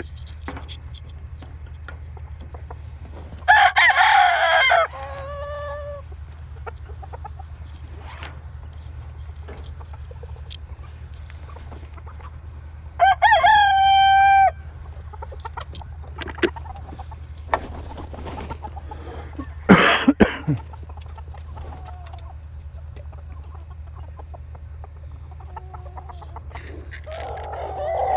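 Rooster crowing twice, about four and thirteen seconds in, with chickens clucking, over a steady low hum. A short loud sound comes about twenty seconds in.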